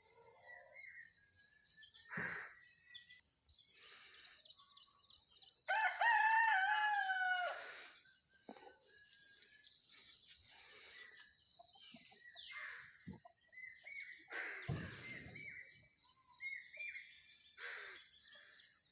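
Country chickens (naatu koli) calling: a rooster crows once, loudly, about six seconds in, for around two seconds, amid scattered clucks and short high chirps. Two brief dull knocks, one about two seconds in and one near the end.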